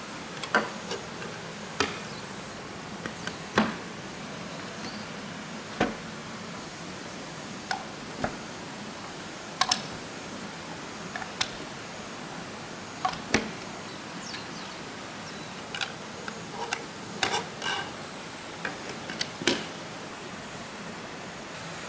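Marbles clicking and knocking irregularly as they run down a plastic bamboo-style somen nagashi water slide, over a steady hiss of running water.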